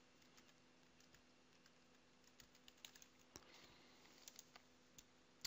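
Faint typing on a computer keyboard: a scatter of quiet keystrokes as a word is typed.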